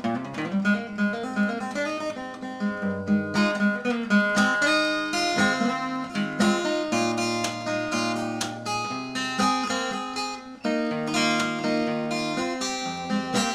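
Solo cutaway acoustic guitar played fingerstyle: plucked melody notes over held bass notes, with a very brief break in the playing about three-quarters of the way through.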